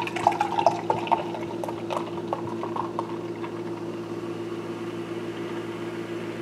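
Fizzy kombucha being poured from a bottle into a stemmed wine glass, splashing and crackling as the glass fills. The crackle thins out after about three seconds, leaving a steady low hum.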